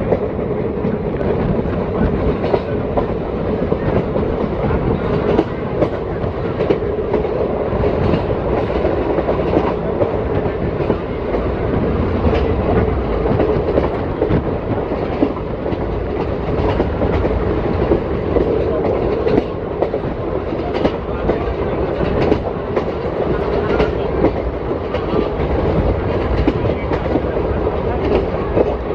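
ICF passenger coach running at speed, heard from on board: a steady rolling rumble of the bogies on the rails, with frequent irregular clicks and clacks of the wheels over rail joints.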